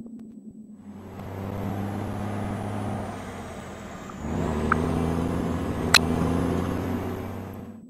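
A motor vehicle engine runs and drives off. Its note shifts about halfway through, there is a sharp click about six seconds in, and the engine fades away near the end.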